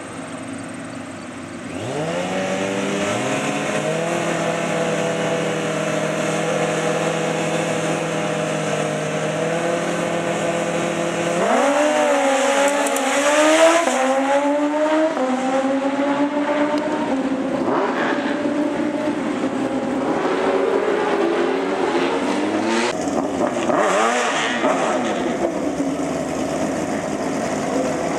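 Two drag-racing sport bikes at the start line. Their engines rev up about two seconds in and hold steady high revs for several seconds. They then launch, the engine pitch climbing and dropping through gear changes as they pull away. Uneven engine revving follows.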